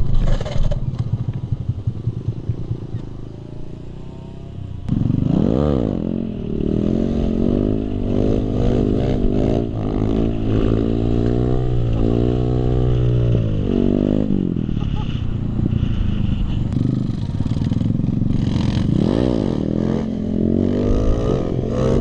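Single-cylinder supermoto motorcycle engine idling low and choppy, then revved sharply about five seconds in. It stays at high revs that rise and fall repeatedly as the throttle is worked for wheelies, with another hard blip near the end.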